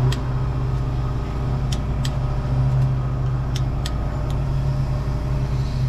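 A steady low machine hum, like a running engine, under a handful of sharp single metallic clicks from a ratchet worked on the front wheel's spindle nut.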